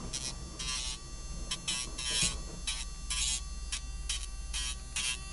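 N10 pet nail grinder's small electric motor running quietly with a steady hum, while its grinding head touches the dog's claw again and again in short, high rasps, about a dozen of them, irregularly spaced.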